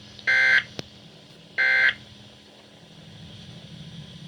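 Emergency Alert System digital end-of-message tones: two short, harsh data bursts, each about a third of a second long and about a second and a quarter apart, signalling the end of the alert message. A steady low hum runs underneath.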